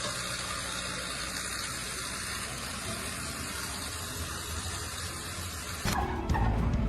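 Steady rushing noise, like a jet of water or air, that cuts off abruptly about six seconds in, giving way to louder low rumbling and knocks.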